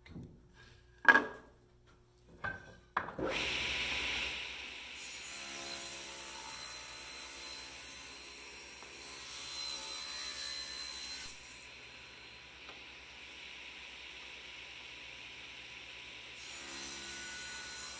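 A few sharp knocks, then a table saw running from about three seconds in, ripping thin mahogany strips. The cutting noise swells and eases as each strip is fed through the blade.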